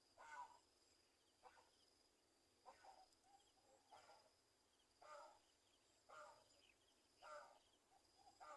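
Faint bird calls, short and repeated about once a second, over a steady high-pitched insect drone.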